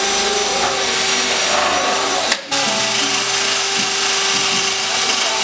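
Cordless drill spinning a wheel attachment against the car's sheet-metal engine bay, grinding off old seam sealer, with music playing over it. The sound drops out sharply for a moment about halfway through.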